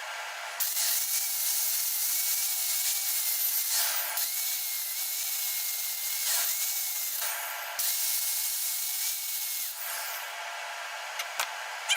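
TIG torch arc hissing during brazing, struck four times for a few seconds each, with a faint steady high whine while the arc is lit. A short click near the end.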